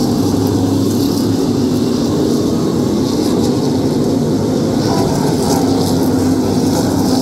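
A pack of modified race cars running together around the oval, their V8 engines a loud, steady drone.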